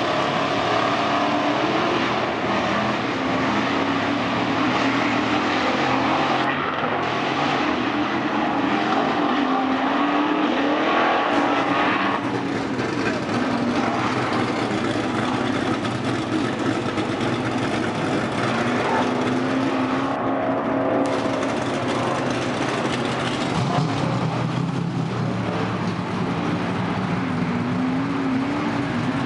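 Several stripped-down race cars running at once on a dirt track, their engines revving up and easing off in rising and falling pitches as they circle and pass.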